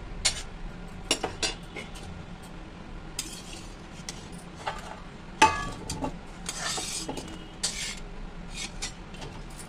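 Slotted steel spoon scraping and clinking against a steel kadhai as boiled bitter gourd pieces are scooped out of their cooking water, with one sharp clink about five and a half seconds in.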